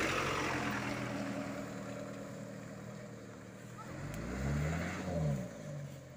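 Old Mitsubishi truck's engine running as it pulls away along a muddy track, fading, then revving up and back down about four seconds in.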